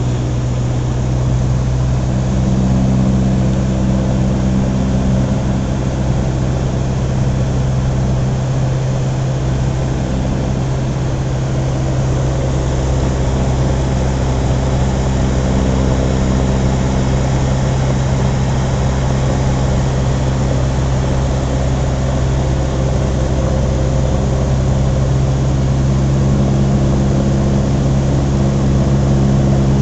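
Cessna 150's four-cylinder Continental O-200 engine and propeller droning steadily in flight, heard from inside the cabin.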